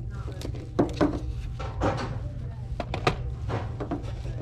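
A series of short, irregular knocks and clunks, a few a second, over a low steady rumble.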